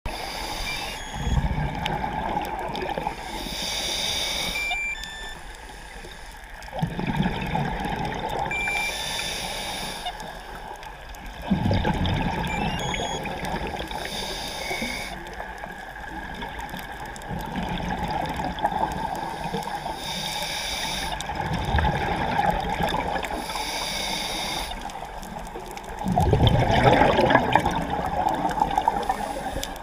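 Scuba diver breathing through a regulator underwater, about six breaths: a short hissing inhale, then the low gurgling rush of exhaled bubbles, repeating every five seconds or so. The last exhale, near the end, is the loudest.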